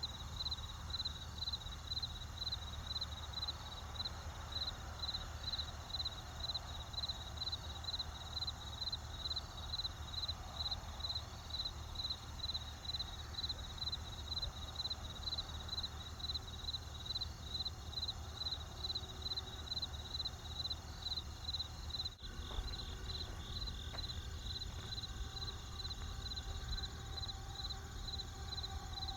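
Crickets chirping in an even rhythm, about two high chirps a second, over a steady low rumble. The sound dips briefly about 22 seconds in.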